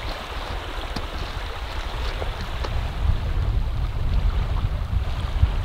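River water rushing, with wind rumbling on the microphone.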